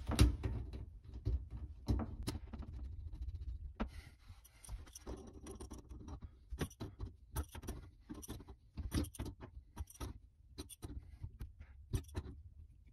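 Wrench clinking against the metal supply-line nut and shutoff valve as the faucet's supply line is tightened onto the valve under the sink: a run of irregular sharp metallic clicks and ticks.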